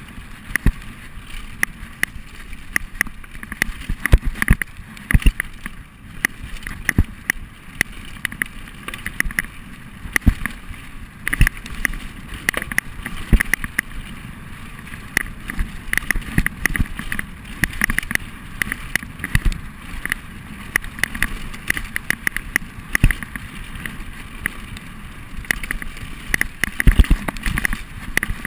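Mountain bike descending a rough dirt and rocky trail: a steady rush of tyre and wind noise with frequent sharp knocks and rattles as the bike jolts over bumps.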